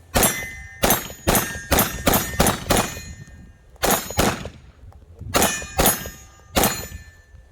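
Pistol shots fired in quick strings, about a dozen in all: seven in rapid succession, then a short pause and two groups of two or three. Each shot is sharp and leaves a brief metallic ringing tail.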